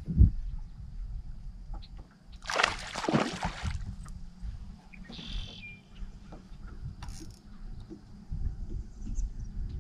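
A splash of water beside the boat about two and a half seconds in, lasting about a second, after a loud thump at the very start, over a steady low rumble of wind on the microphone.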